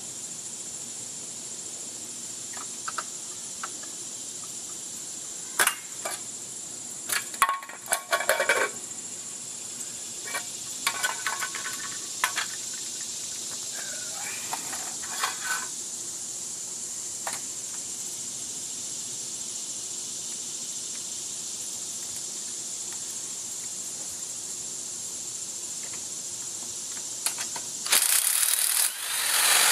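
Scattered light clicks and knocks of tools being handled, then, near the end, a corded electric impact wrench starts up loudly in two bursts, loosening the front wheel's lug nuts.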